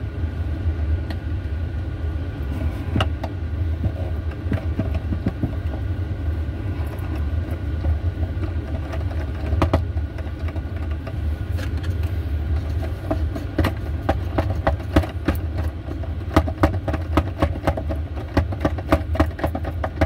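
A screw being driven by hand into the wooden cabinet frame: from about halfway in, a quick run of small clicks and creaks, about three or four a second, over a steady low hum.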